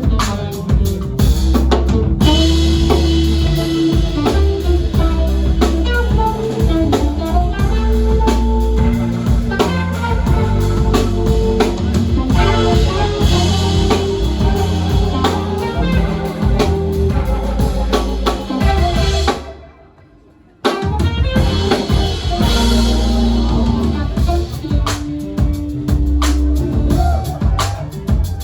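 Live band playing an instrumental number with the drum kit to the fore over bass and keyboards. About nineteen seconds in the band stops together and the sound dies away, then everyone comes back in at once a little over a second later.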